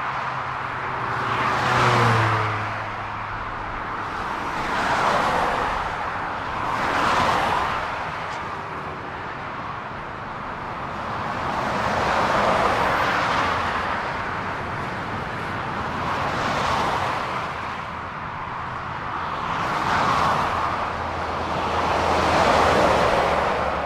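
Road traffic: about seven cars pass one after another, each a swelling and fading rush of tyre and engine noise, with a low engine hum under the first pass.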